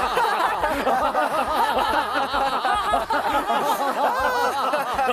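A group of children and adults laughing together on cue, many voices overlapping, as part of a laughter-therapy exercise.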